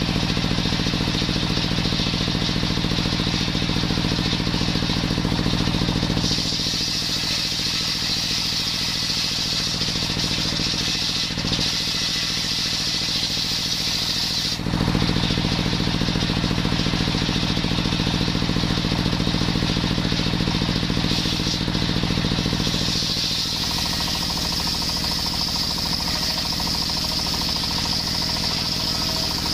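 Engine-driven circular saw bench, its stationary engine running steadily and driving the blade by a belt while the blade rips a coconut-wood beam lengthwise. A high sawing hiss is strongest from about six to fifteen seconds in and again from about twenty-three seconds on.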